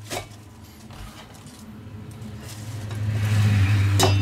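A short knock in the kitchen, then a steady low hum that swells louder through the second half, with a sharp click near the end as the cut cabbage in its steel bowl is handled.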